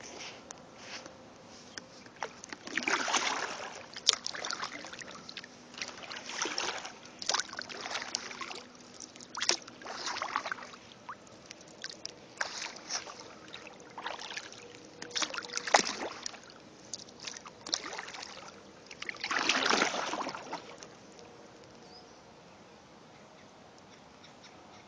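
Kayak paddle strokes: the blades dip and pull through calm river water in irregular splashes and swishes, with larger splashes about three seconds in and around twenty seconds, then the strokes stop near the end.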